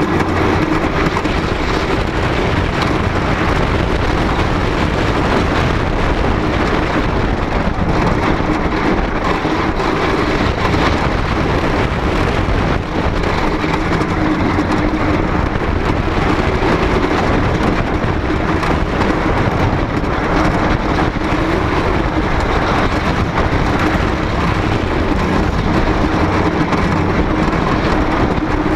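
A Great Coasters International wooden roller coaster train running at speed over its wooden track, heard from on board. It makes a loud, steady rumble and rattle that does not let up.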